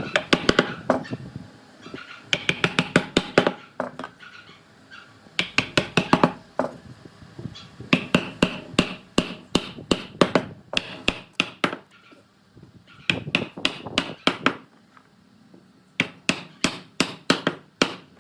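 Rapid hammer taps on wood, about five or six sharp knocks a second, in runs of one to three seconds with short pauses between them.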